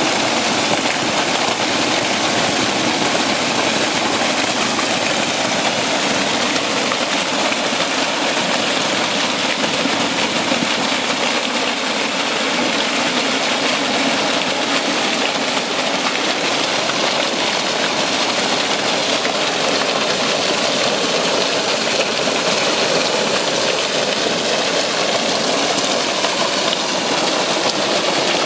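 Spring water bursting up out of a rock in a dome and splashing down over the stones: a loud, steady rush of water.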